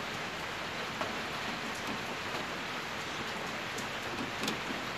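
Steady rain noise, an even hiss with no let-up, with a couple of faint small ticks, one about a second in and one near the end.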